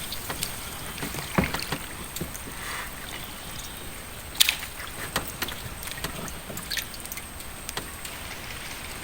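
Scattered light knocks and clicks with faint water sounds around a small fishing boat, the two loudest knocks about a second and a half and four and a half seconds in.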